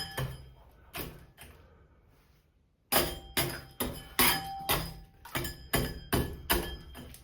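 Repeated hammer blows with a short metallic ring, a few strikes, a pause of about a second, then about three blows a second.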